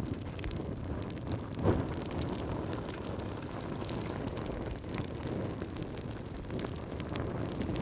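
Wood fire in a fireplace crackling: irregular sharp pops and snaps over a steady low rumble of the flames, with one louder pop a little under two seconds in.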